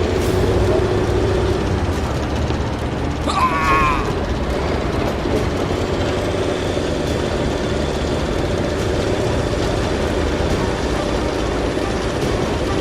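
A small motor whirring steadily, with a brief wavering high-pitched sound about three seconds in.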